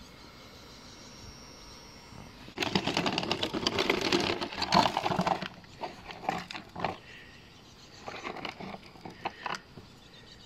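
Hand-handling noise on the RC car's plastic parts and wiring: a sudden burst of crackling and rustling about two and a half seconds in, then scattered clicks and taps.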